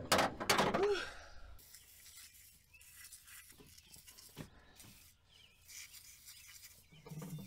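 Sharp metallic clinks and clatter of tools at the engine, then short hisses of an aerosol spray can sprayed around the frozen spark plugs of a Ford 300 inline six.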